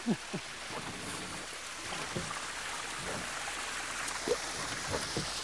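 Running water from a freshwater spring trickling out of a limestone bluff into the river: a steady rushing hiss.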